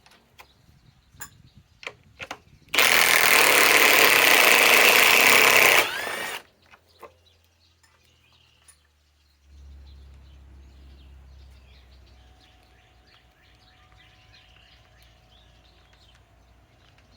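Milwaukee M18 Fuel mid-torque impact wrench hammering a 5-inch lag screw out of wood in one loud run of about three seconds, with a few clicks before it. Near the end, a faint low hum and faint bird chirps.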